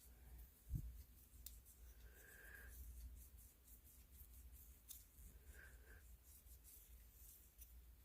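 Faint rubbing and wiping strokes as a flashlight reflector is cleaned by hand, with a soft knock about a second in.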